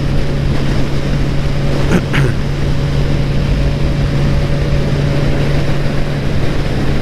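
Motorcycle engine running at a steady, even pitch while cruising in sixth gear, with constant wind and road rush over it.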